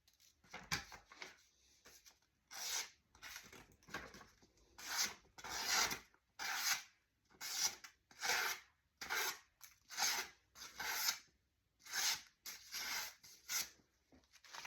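A bushcraft knife blade scraping in repeated strokes, more than a dozen at roughly one a second, each a short rasping scrape.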